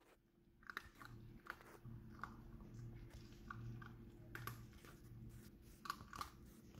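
A puppy chewing and crunching dry kibble from a plastic bowl: faint, irregular crunches and clicks, starting about half a second in.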